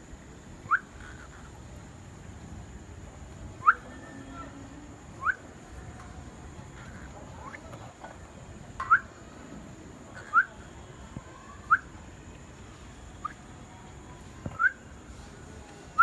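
Cockatiel giving short, rising whistled chirps, about nine of them spaced a second or two apart.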